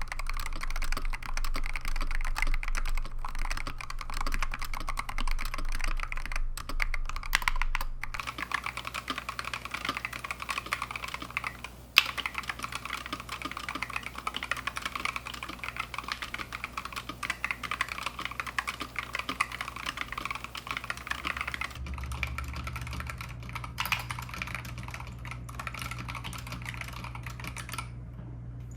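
Continuous fast typing on the GamaKay TK75 HE keyboard's magnetic Hall-effect switches, a dense run of key clacks. The sound changes character about 8 seconds in and again near 22 seconds, with one sharper clack around 12 seconds, and the typing stops just before the end.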